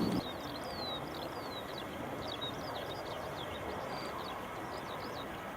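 Small birds chirping repeatedly in quick, short, falling notes over a steady background noise.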